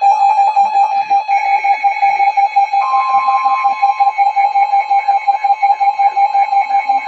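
Emergency Alert System attention signal: a loud, steady electronic alert tone that starts abruptly, with a second, higher tone joining about three seconds in, over plucked guitar background music.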